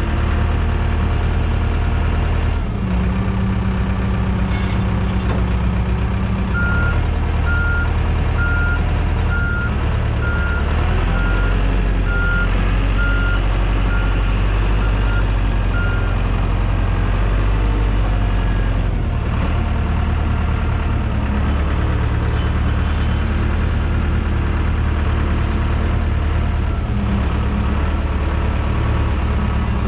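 Diesel engines of heavy equipment running steadily, with the revs shifting now and then. A backup alarm beeps about once a second for roughly ten seconds, starting about seven seconds in.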